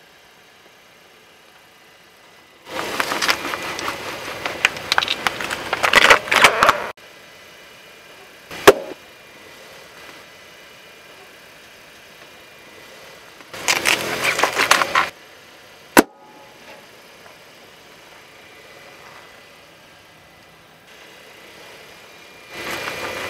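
Car tyre rolling slowly onto inflatable plastic soccer balls on asphalt: stretches of crackling and crunching under the tyre, and two single sharp, very loud bangs about seven seconds apart as balls burst.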